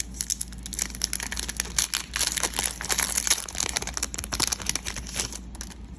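Foil Pokémon booster pack wrapper crinkling and tearing as it is opened by hand: a dense run of crackles that thins out near the end.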